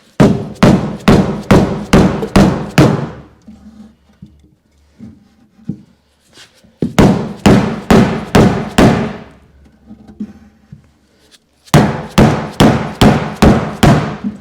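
Hammer blows on the steel door panel of a 1952 Chevy Styleline Deluxe, struck from the inside to knock out a dent: three runs of six or seven quick, ringing blows, about two and a half a second, with short pauses between the runs.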